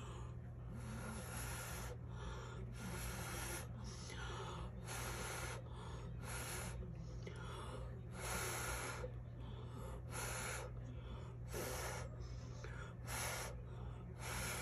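A person blowing repeated short breaths onto wet acrylic pour paint, about one puff a second with one longer blow a little past the middle, used in place of a hair dryer to push the paint out into a bloom.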